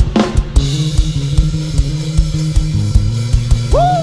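Live rock band playing an instrumental passage: drum kit beating steadily under electric guitar and a stepping bass line. A voice comes in with a long sliding call near the end.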